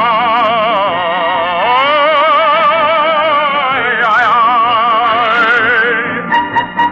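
Operatic singing over an orchestra: a voice holds long notes with a wide, even vibrato, giving way about six seconds in to the orchestra alone. The sound is narrow and dull, like an old radio transcription.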